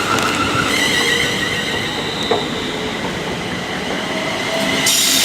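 Class 360 electric multiple unit on the move, its traction electrics giving off several steady whining tones over the rumble of its wheels. A burst of hiss comes near the end.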